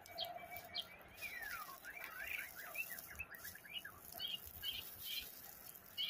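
White-rumped shama singing a rapid, varied song of whistled notes and pitch slides, with a long falling whistle about a second and a half in.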